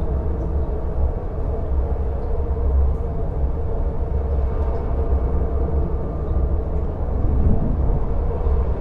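Wind blowing: a steady low rumble that swells and eases a little.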